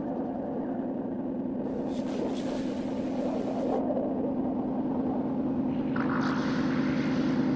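Sci-fi ambient sound design: a steady low mechanical drone that slowly swells in loudness, with a burst of hissing about two seconds in that lasts about two seconds, and a brighter rushing layer joining near the end.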